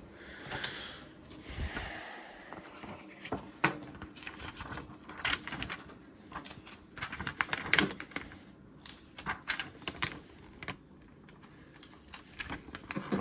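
Paper instruction manual being handled and leafed through: irregular light clicks and rustles of pages, with a softer rustle in the first couple of seconds.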